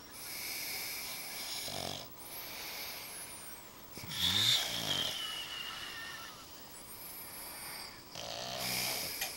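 A pug and a man snoring together: a run of rasping snoring breaths mixed with high whistling. The loudest breath comes about halfway, with a whistle that slides down in pitch.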